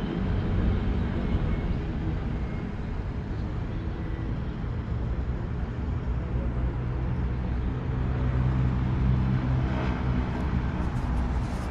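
Road traffic noise: a steady low rumble of passing vehicles, with an engine's drone growing stronger in the second half.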